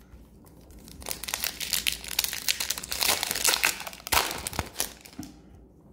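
Foil wrapper of an Upper Deck hockey card pack crinkling and crackling as it is handled and opened, starting about a second in and dying down about a second before the end.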